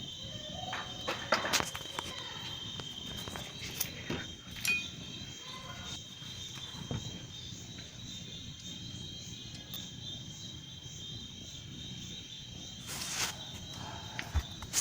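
Steady high chirring of crickets, with a few scattered clicks and knocks from parts being handled, the loudest about a second and a half in and near the end.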